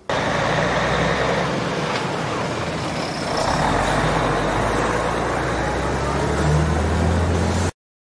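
Diesel engines of heavy container trucks running as they roll through a toll lane at close range, a steady low engine drum under road and engine noise. It grows a little louder about halfway through and stops abruptly near the end.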